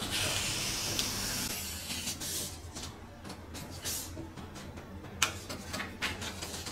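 Scissors cutting through a large sheet of brown pattern paper: one long continuous cut for about the first second and a half, then several separate short snips and rustles of the paper.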